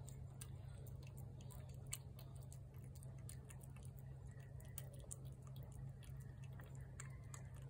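Gray tabby cat eating wet food from a plate: faint, irregular chewing and lapping clicks over a steady low hum.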